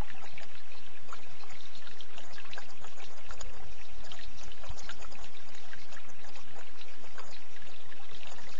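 Water trickling steadily, a continuous rush flecked with many small splashes and gurgles.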